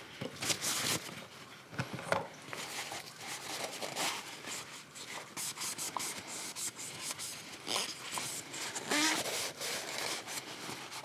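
Paper shop towel rubbing and crinkling in irregular strokes as gloved hands wipe oil off a plastic oil filter housing cap.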